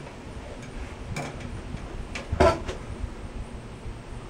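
Handling sounds as a wig is fitted onto a plush puppet: soft rustles and small clicks, with one louder brief rustle or bump about two and a half seconds in.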